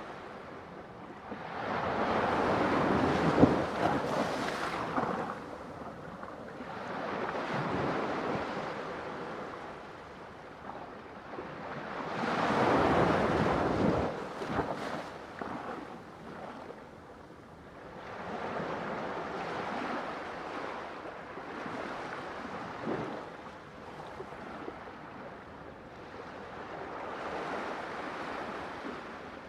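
Ocean waves breaking on a shore, the rush of surf swelling and falling away in repeated surges, the biggest about two seconds in and again near the middle.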